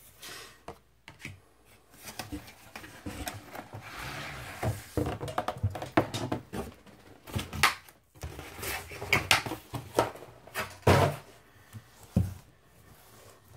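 Shrink-wrapped vinyl LP being slid out of a cardboard mailer box and set down: cardboard scraping and plastic rustling with a string of knocks and thuds, busiest in the middle.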